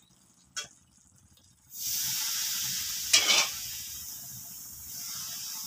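Hot oil hitting the cooking Mysore pak batter of gram flour and sugar syrup in the pan, sizzling and frothing with a steady hiss that starts about two seconds in. The frothing sizzle shows the oil is hot enough. There is a short sharp sound about three seconds in.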